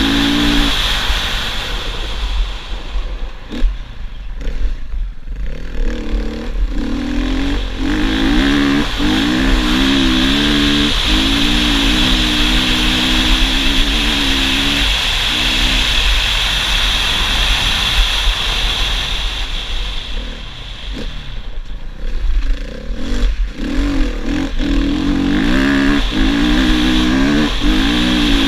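Husqvarna FE 450 four-stroke single-cylinder dirt bike engine at full throttle at high speed, its pitch wavering with the throttle. The rider eases off twice, a few seconds in and again about two-thirds of the way through, before pulling hard again. Wind rushes steadily over the onboard camera.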